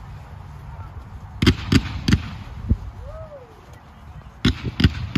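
"Red Line" consumer fireworks cake firing aerial shots. There are sharp bangs in clusters: three quick ones about a second and a half in, a single one near the middle, and three more near the end, with a low rumble between them.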